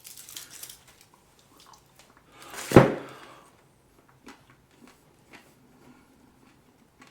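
Handling a Toblerone bar to break off a piece: faint wrapper crinkles in the first second, one loud sudden thump about three seconds in, then faint scattered clicks.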